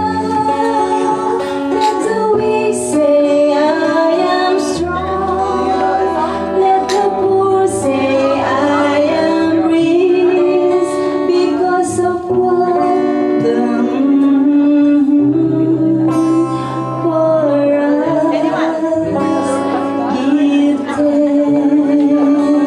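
Woman singing a song, accompanied by guitar.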